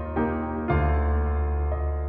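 Background piano music, slow, with new chords struck near the start and again after about two-thirds of a second.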